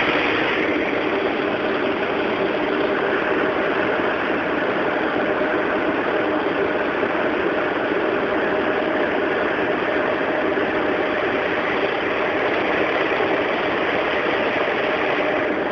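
Nanchang CJ-6 trainer's nine-cylinder radial engine running steadily in cruise flight, heard from inside the cockpit as a constant drone over propeller and wind noise.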